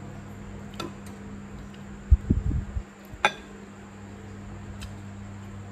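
Chopsticks clinking against a porcelain rice bowl a few times, a sharp click with a short ring, and a cluster of dull low thuds a little over two seconds in, over a faint steady hum.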